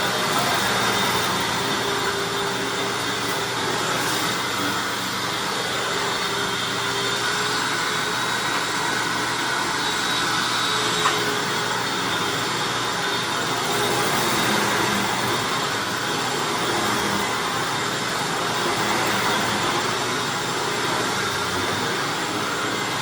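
Hoover Anniversary bagged upright vacuum running steadily with its brush roll on at the low-carpet height, sucking up scraps of paper from carpet: a constant motor whine over steady airflow noise, with one brief click about eleven seconds in.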